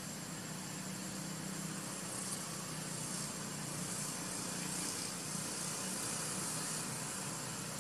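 Steady outdoor background noise: a low hum under an even hiss, with a faint high, steady whine, and no distinct events.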